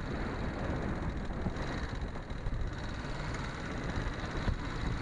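Yamaha XT250's air-cooled single-cylinder four-stroke engine running steadily at low speed while the trail bike rolls along, with road and wind rumble.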